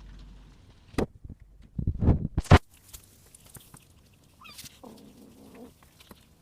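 Sharp knocks and scuffling thumps about a second and two seconds in, then a short, faint cat meow near the middle.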